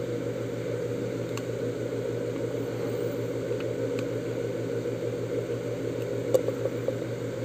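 Electric fan running with a steady hum, with a few faint clicks as the plastic gauge housing is handled.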